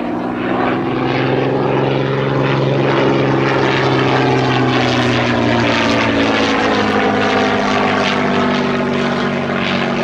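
Hawker Fury biplane's supercharged Rolls-Royce Kestrel V-12 engine and propeller running in flight. It grows louder over the first couple of seconds and holds steady, and its pitch drops slowly through the second half.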